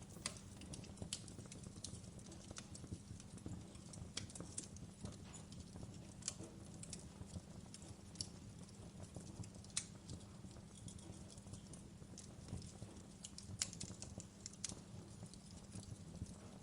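Fireplace crackling: irregular sharp pops and snaps at an uneven pace over a low, steady rumble.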